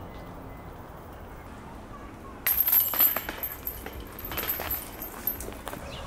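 Hanging metal chains and wire basket of a disc golf target jingling and clinking as a disc is handled in the basket, starting suddenly about two and a half seconds in and dying away near the end.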